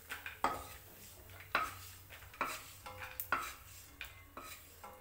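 A metal spoon scraping and clinking against a kadai as fried peanuts are scooped out of the hot oil, several strokes roughly a second apart.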